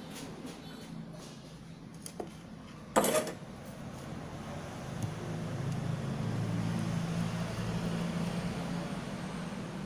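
A sharp clack about three seconds in, then a low engine hum that swells and fades over several seconds: a motor vehicle going by.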